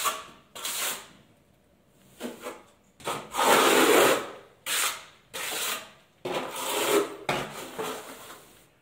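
Steel trowel scraping as it spreads a thin skim coat of facade adhesive over a mesh-reinforced base coat on a ceiling. It comes as about eight separate strokes, the longest and loudest about three seconds in.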